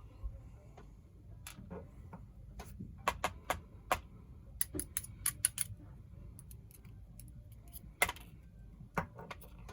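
Small metal clicks and taps of lock pins, springs and tweezers against a pin-tumbler lock cylinder as it is taken apart after picking. The clicks come irregularly, in quick clusters about three and five seconds in, with the sharpest single clicks near the end.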